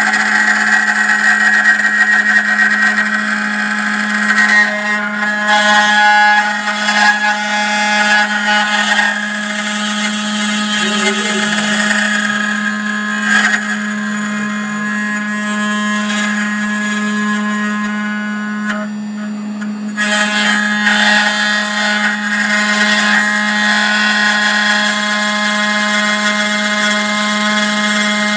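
Spindle of an N-Gravetek Y4S desktop CNC engraving machine running and milling a carved bust held on its rotary axis: a steady hum under a high whine of several steady tones, with cutting noise that swells and eases as the tool moves. The whine thins out briefly about two-thirds of the way through.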